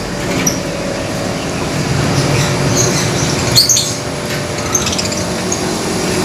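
Several lovebirds in one cage chirping: short, sharp, high chirps come at scattered moments, the loudest cluster a little past halfway, over a steady low background hum.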